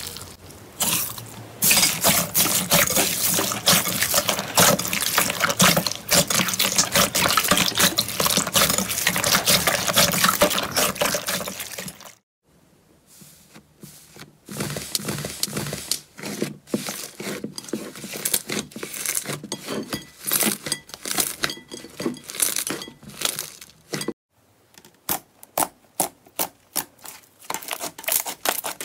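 Hands squishing slime. First comes a dense, continuous wet crackling as a hand presses through jelly slime under a layer of small beads. After a brief silence about twelve seconds in, there are sparser separate wet clicks and squelches as puffy and then glossy slime is pressed.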